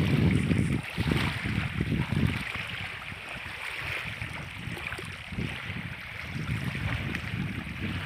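Small freshwater waves washing and lapping onto a reservoir's muddy shore, with wind buffeting the microphone in uneven gusts, strongest in the first couple of seconds.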